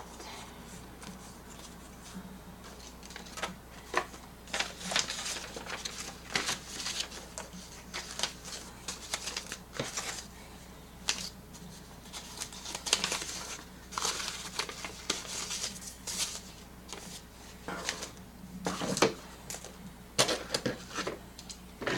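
Items being unpacked and handled: irregular rustling, crinkling and clicking of paper, card and packaging, coming in short bursts.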